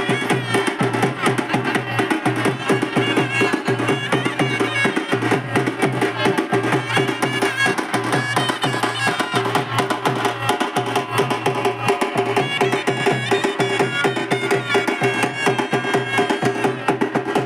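A band playing: fast, steady drumming with a held, pitched melody line over it.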